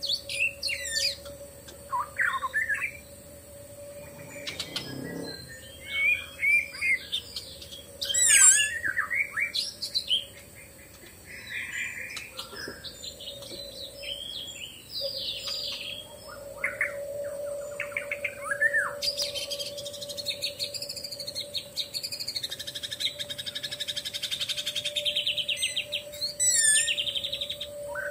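Forest birds chirping and calling, with many short whistled and sliding calls from several directions over a steady hum. About two-thirds of the way through, a long, rapid pulsing call comes in and runs for several seconds.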